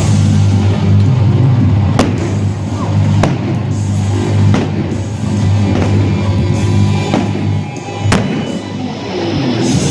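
Music with a heavy bass beat playing over the stadium sound system while fireworks go off, with sharp bangs clearest about two, three and eight seconds in.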